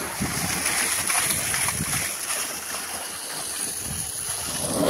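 Water pouring out of a tipped plastic drum and splashing onto grass, a steady rush that swells a little near the end.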